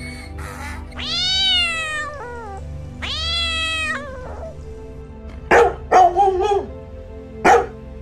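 A domestic cat meows twice, two long drawn-out meows that fall in pitch at the end. A dog then barks several times, in short sharp barks over the last three seconds.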